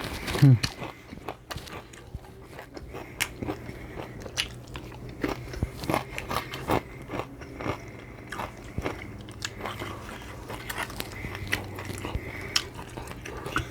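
Chewing and biting into Mexican shrimp cocktail: a run of short, wet, crunchy mouth clicks, with one louder low thump about half a second in.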